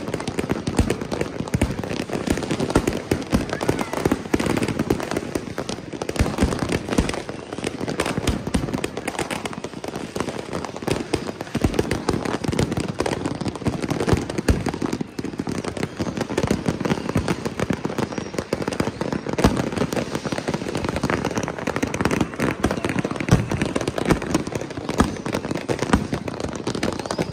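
Many New Year's Eve fireworks and firecrackers going off at once: a dense, unbroken barrage of bangs and crackling with no pause.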